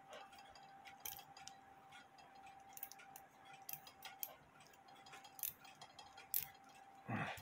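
Faint, irregularly spaced light clicks from the brass movement of a Hubert Herr cuckoo quail clock as its levers and wheels are moved by hand, over a faint steady hum.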